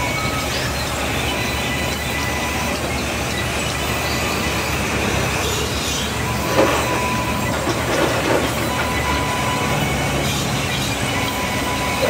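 Large band saws running in a sawmill: a steady mechanical hum with a thin high whine while a board is cut, and a few knocks of wood on the saw table about six and a half and eight seconds in.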